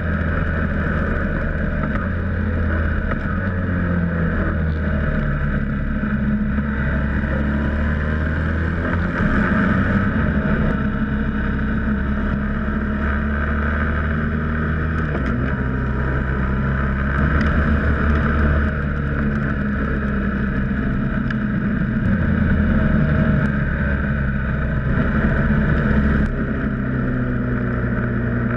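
Racing sidecar outfit's engine running hard, heard from an onboard camera with wind rush. The engine note holds for a few seconds and then shifts, over and over, as the outfit goes around the circuit.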